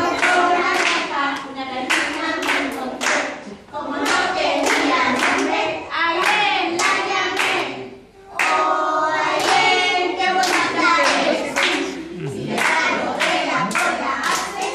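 A group of preschool children singing a song together while clapping their hands along, with a brief pause about eight seconds in.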